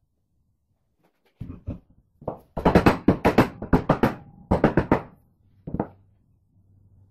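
A quick, irregular run of sharp knocks and clanks that starts about a second and a half in, comes thickest in the middle, and ends with a single knock near the end.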